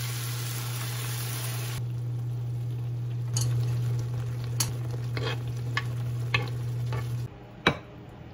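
Water poured into a hot pan of sautéed diced ingredients sizzles loudly for about two seconds. The curry then bubbles quietly while a wooden spatula stirs and taps the pan, over the steady low hum of an induction cooktop. Near the end there is a single clink of a ceramic plate.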